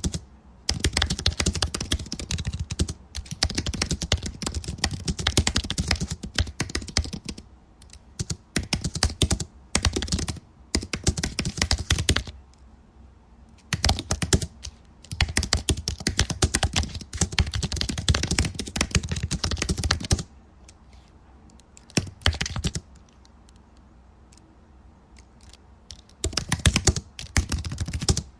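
Typing on a computer keyboard: rapid key clicks in runs of a few seconds with short breaks, and a longer lull about two-thirds of the way through before a final short run.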